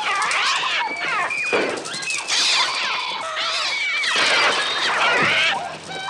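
Many gulls crying at once in a dense, overlapping chorus of shrill calls that glide up and down in pitch. These are the film's gull attack sounds, made electronically on a Mixtur-Trautonium rather than recorded from live birds.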